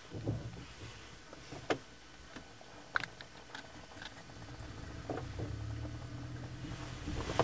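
Glider cockpit with a few light clicks and knocks, then the low drone of the towplane's engine ahead, building from about halfway through as the tow is readied.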